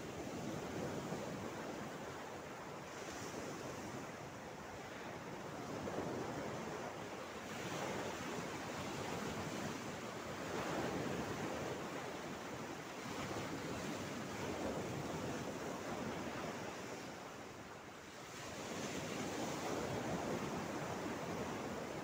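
Small sea waves lapping and washing over a pebbly shore and rocks, swelling and ebbing every few seconds.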